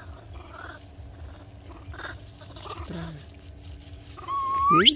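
Long-tailed macaque calling: a few faint short calls, then near the end a loud squeal that holds one pitch for about half a second and then sweeps sharply upward.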